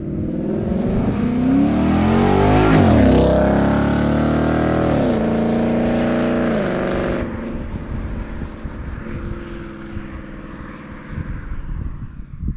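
2016 Ford Mustang GT's 5.0-litre Coyote V8 through a custom Borla exhaust, accelerating past: the engine note climbs as the car approaches and drops sharply in pitch as it passes about three seconds in. Two upshifts follow as it pulls away, and the sound fades into the distance.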